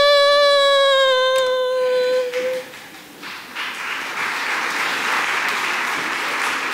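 A long held high note, one steady pitch, fades out about two and a half seconds in. A theatre audience then applauds.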